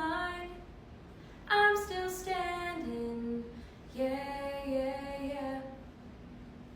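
A woman singing slow phrases: a note trailing off at the start, then a phrase stepping down to a low held note, then a second phrase of held notes, with short pauses between.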